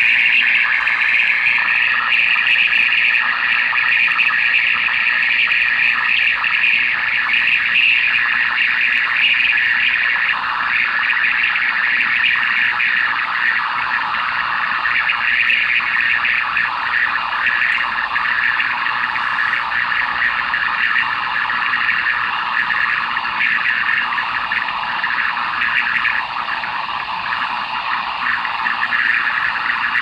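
Stryker SR-955HP radio's speaker giving out a steady, loud hissing, rushing noise received on 27.557 MHz: an odd signal that floats slowly through the frequencies, which the operator likens to a long train passing and others would call atmospheric noise. Faint steady tones ride on the hiss for the first ten seconds or so, then fade.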